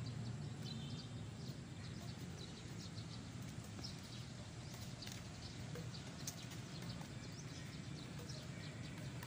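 Outdoor ambience: a steady low background rumble with scattered faint high chirps of small birds and an occasional faint click.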